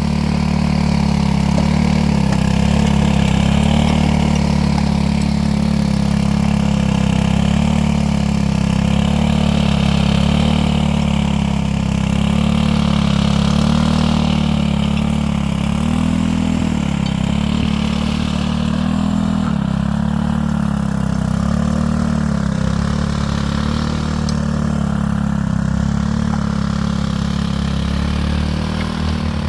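An engine running steadily at a constant speed, with a slight waver in its note partway through.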